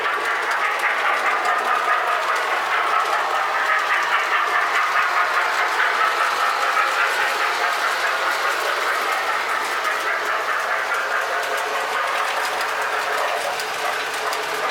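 Lionel O-gauge toy train running on three-rail track: a steady whir with the wheels clattering along the rails, a little fainter near the end.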